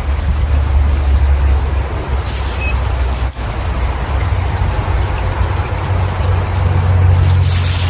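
Wind buffeting the microphone: a loud, uneven low rumble under a steady hiss, with a brief louder rush of hiss near the end.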